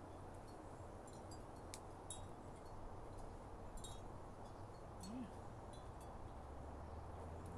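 Wind chimes tinkling faintly, a few scattered high notes, over a steady low background hum.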